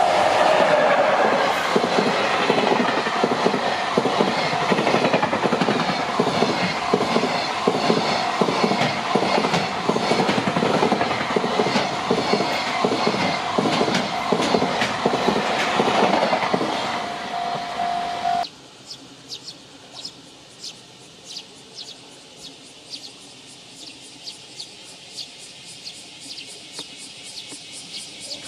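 Long container freight train hauled by an EF66 electric locomotive passing close by: continuous rumble with rhythmic wheel clatter over the rail joints, and a steady high tone briefly at the start and again for about two seconds before it ends. The train noise cuts off abruptly about two-thirds of the way through, leaving a much quieter scene with faint regular ticking.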